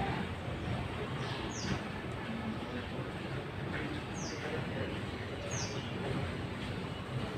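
A bird repeating a short, high chirp that slides down in pitch, once every second or two, over a steady background hiss.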